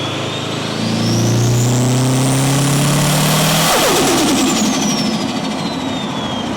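Subaru WRX's turbocharged flat-four accelerating hard, with the turbo whistle rising in pitch. Then the throttle snaps shut about four seconds in: the engine note drops and the whistle falls away through a rapid flutter of compressor surge, from a car running no blow-off valve and a narrowed 3-inch intake pipe.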